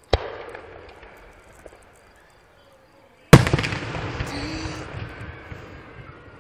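Aerial fireworks shells bursting: a sharp bang just after the start, then a much louder bang about three seconds in that echoes and fades away over the next few seconds.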